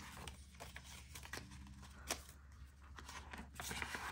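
Paper banknotes and a paper placeholder card rustling faintly in the hands as they are slid into a clear plastic binder pocket, with scattered soft ticks and one sharper click about two seconds in.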